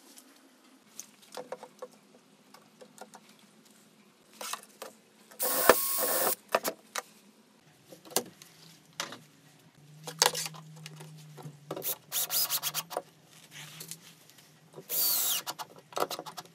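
Workshop assembly sounds: scattered knocks and clicks from chipboard panels and a quick-release bar clamp being handled, with several short louder rattling bursts. Near the end a Festool cordless drill runs briefly with a rising whine, driving a screw.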